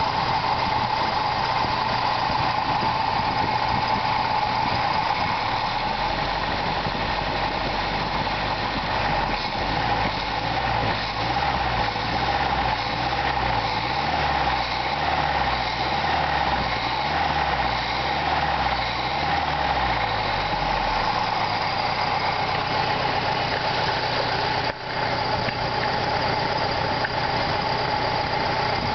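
Toyota 22R four-cylinder engine idling steadily, its carburetor open without an air cleaner. For a stretch in the middle the low hum wavers in a slow, even rhythm.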